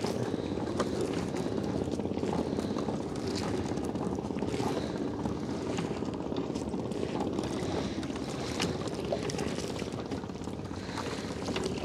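Small boat engine running steadily, a continuous low drone with a fast, even pulse.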